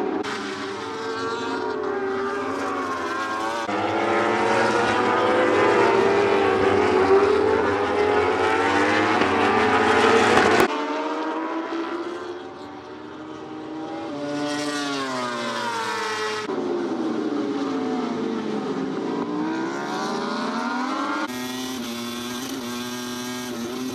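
World Superbike racing motorcycles at full throttle, their engines rising and falling in pitch through gear changes and passing by, first as a pack at the race start and then a few bikes at a time, with abrupt cuts between shots. Near the end one bike's engine is heard steadier from an onboard camera, with a high hiss over it.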